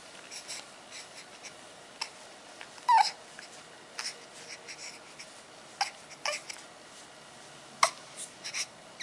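A baby's short, scattered mouth sounds: a brief falling squeak about three seconds in and several little clicks and smacks between quiet stretches.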